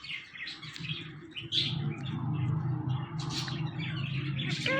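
Pet talking parrot chirping with short scattered calls over a low steady hum. Near the end it gives a clear whistled note that rises and falls.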